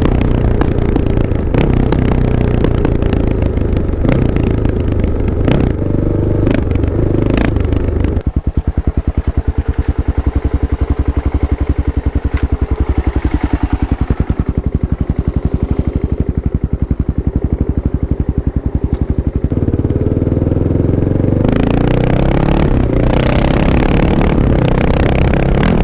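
Kawasaki KLX 650's single-cylinder four-stroke engine revving with some clatter, then dropping to an even idle about eight seconds in and revving up again after about twenty seconds.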